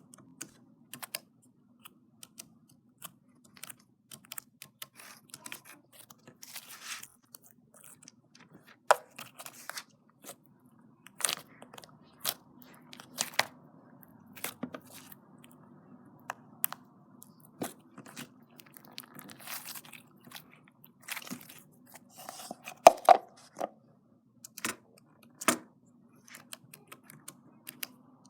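Slime being handled, giving irregular sticky crackles and sharp pops, over a faint steady low hum.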